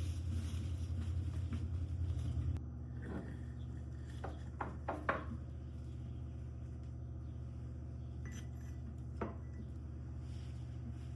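A steady low hum that drops in level about two and a half seconds in, with a few light knocks and clatters, the loudest about five seconds in and one more near the end.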